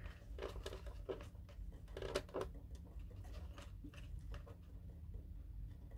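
Faint handling noises: soft rustling and light irregular taps, over a steady low hum.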